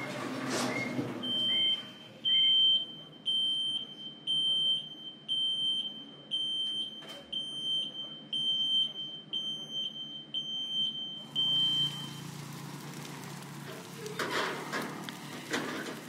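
High-pitched electronic beeping, about two beeps a second, which keeps on for around eleven seconds and then stops.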